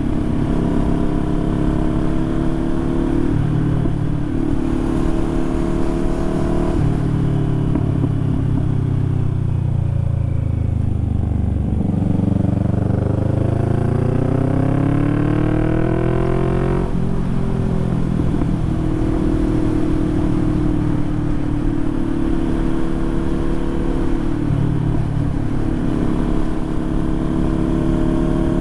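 Harley-Davidson motorcycle engine under way: the note falls as the bike slows for several seconds, then climbs steadily under acceleration and drops sharply at a gear change, with another shift near the end.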